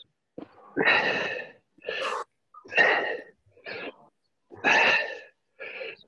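A person breathing hard and rhythmically from exercise: heavy, noisy breaths about once a second, picked up close on a video-call microphone that cuts out between them.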